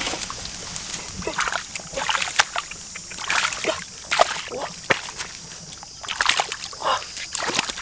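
Hands splashing and sloshing in a shallow muddy ditch while groping for fish by hand, in irregular bursts of small splashes.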